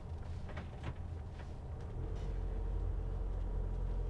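Diesel engine of a Fiat Ducato-based Bailey Adamo motorhome running as it drives slowly, heard from inside the cab. About halfway through it grows louder, with a steady drone.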